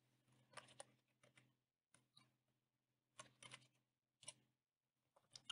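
Faint typing on a computer keyboard: small scattered clusters of key clicks with short pauses between them.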